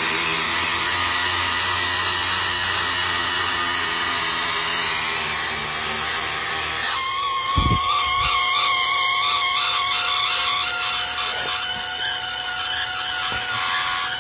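3D printer's motors running steadily as the auto-ejection mechanism closes the drop door. About seven seconds in the sound changes to a wavering whine, with two short knocks just after the change.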